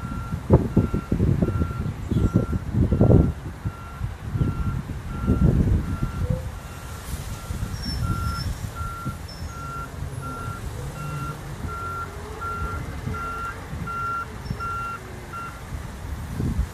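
Reversing alarm of a front-loader garbage truck beeping steadily, about once every 0.7 seconds, as the truck backs up, stopping near the end. A loud low rumble rises and falls over the first six seconds.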